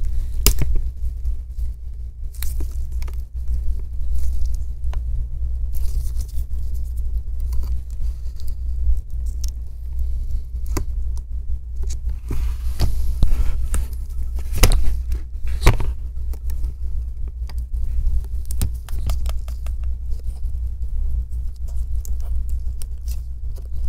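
Handling noise from a thin metal pick working at the edge of a laptop screen, with scattered small clicks and scrapes, over a steady low rumble.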